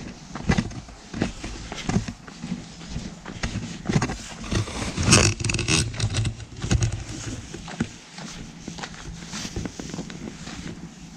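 A run of irregular knocks, clicks and scrapes, thickest and loudest a little after the middle.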